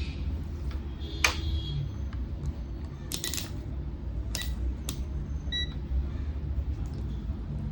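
A few sharp clicks and taps, the loudest about a second in and several more around three to five seconds, then a short electronic beep about five and a half seconds in, over a steady low hum.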